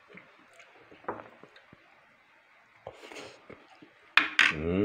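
Soft eating sounds, faint mouth noises and a few small clicks. About four seconds in comes a sharp click and then a short drawn-out sound from a person's voice, the loudest thing here.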